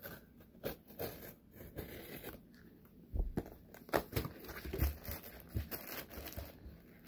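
Utility knife cutting open a cardboard mailer box, then the cardboard being torn and handled, with irregular scrapes, crinkles and clicks. Louder dull knocks come about halfway through.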